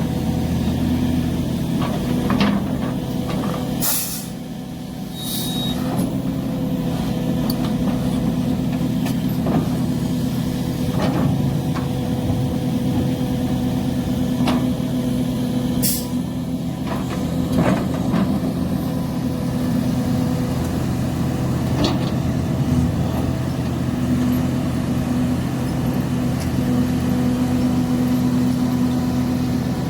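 Link-Belt excavator's diesel engine running steadily, with scattered knocks and clanks and two short bursts of hissing, about four seconds in and again near the middle.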